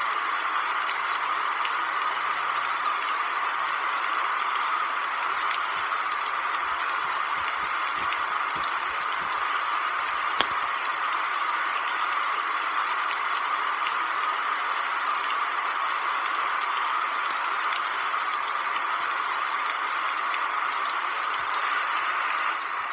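Steady rain-like pattering, a dense hiss of tiny rattles with a sharp click about ten seconds in, easing off just before the end.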